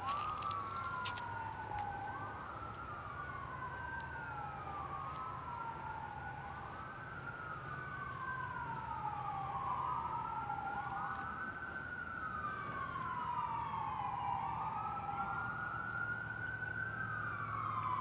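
Emergency vehicle sirens wailing, more than one at once and out of step, each sweeping up and down in pitch about every two seconds.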